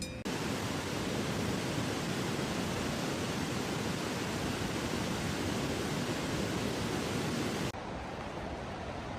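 Steady, even noise of rushing water. It cuts in suddenly about a quarter second in and drops to a quieter hiss near the end.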